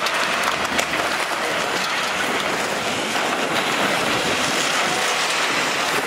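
Wrecked buses driving on a wet racetrack: a steady rush of engine and tyre noise, with a few sharp knocks and rattles in the first second.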